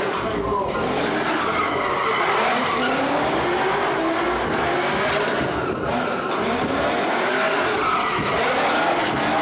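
A car drifting, its engine revving up and down hard over and over as the tires skid and screech.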